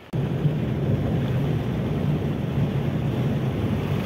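Car driving along a highway, heard from inside the cabin: steady engine, tyre and wind noise that begins suddenly just after the start.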